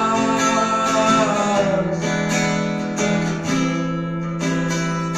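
Acoustic guitar strummed in an instrumental passage, its low notes ringing under repeated strokes. A held sung note trails off in the first second and a half.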